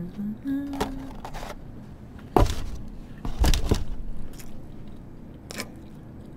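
Close-miked eating of a thick cheese-filled toast: loud sharp crunching bites and knocks about two and a half and three and a half seconds in, with softer chewing and small clicks after.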